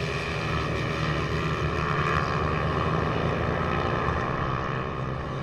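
Several 140-class racing minibikes with their engines running hard, passing as a pack with an overlapping buzz. The sound grows a little louder towards the middle and eases again near the end.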